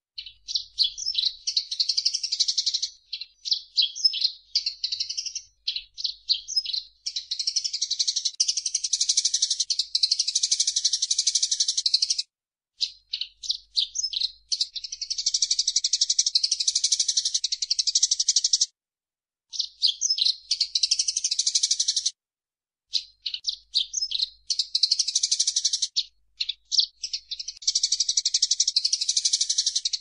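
Eurasian tree sparrow chattering: runs of quick high chirps alternate with dense, rapid trills that last several seconds at a time, with a few short pauses.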